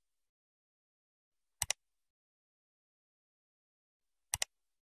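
Computer mouse clicks, two quick clicks at a time, twice: about a second and a half in and again near the end, with silence between.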